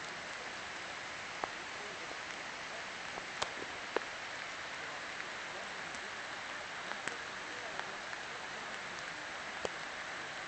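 A steady hiss with a few light, sharp ticks scattered through it.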